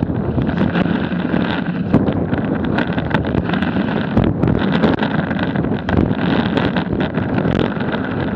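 Wind buffeting the microphone of a board-mounted Garmin VIRB action camera, mixed with a snowboard's base scraping and chattering over packed, choppy snow, with many short sharp clicks throughout.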